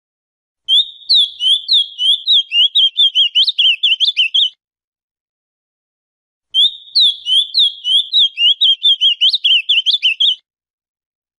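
Male ultramarine grosbeak (azulão, Cyanoloxia brissonii) singing: two phrases of about four seconds each, a rapid run of high notes that comes faster toward the end, with a pause of about two seconds between them.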